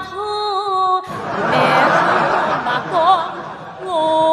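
Stage music with long, wavering held notes, broken after about a second by a burst of studio-audience laughter lasting a couple of seconds. The held-note melody comes back near the end.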